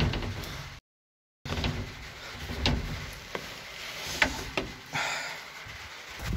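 Handling noise of a handheld camera jostled against clothing and moved about a small room: rustling with several sharp knocks and clicks, broken by a brief dropout to dead silence about a second in.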